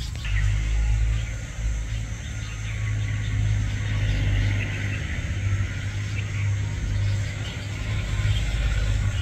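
A steady low rumble, with faint, high bird chirps over it.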